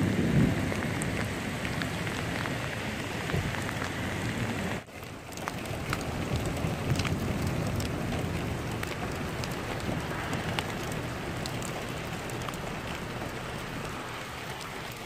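Steady rain falling, with scattered drops ticking close by and a brief low rumble right at the start. The sound drops out for a moment about five seconds in.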